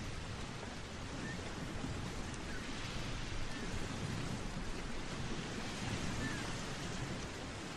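Steady rushing noise, even and unbroken, with no tones or rhythm in it.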